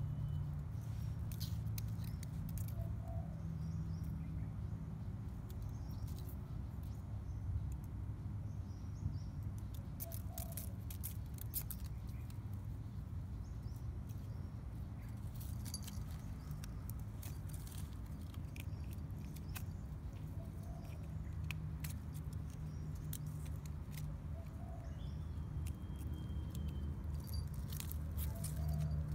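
Small bell on a cat's collar jingling in short, scattered clusters as the cat shifts and swats, over a steady low hum.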